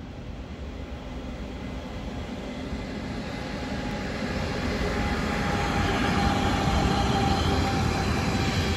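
Class 187 electric freight locomotive hauling tank wagons, approaching and passing close by. The rolling noise grows steadily louder, with faint steady whining tones over it as the locomotive draws level.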